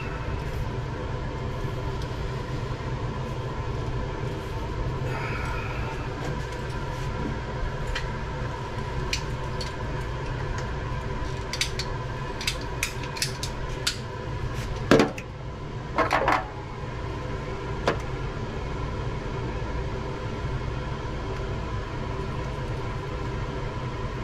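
A steady mechanical hum, with scattered light clicks and two louder knocks or rattles about fifteen and sixteen seconds in.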